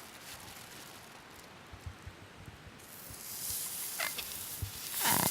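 Saury starting to sizzle on a hot iron griddle, the sizzle rising about three seconds in. Near the end come short fluttering buzzes, the last one the loudest, a sound heard as "buru buru buru buru".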